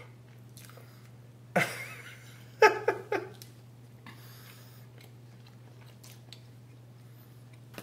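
A person biting into and chewing a danish pastry, soft mouth noises throughout. A short voiced sound comes about three seconds in.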